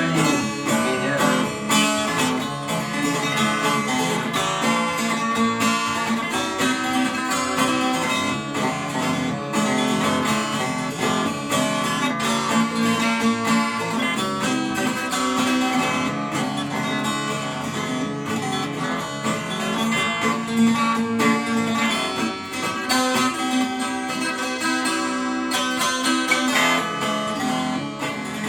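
Instrumental music without singing: an acoustic guitar strumming chords, playing out the end of a song.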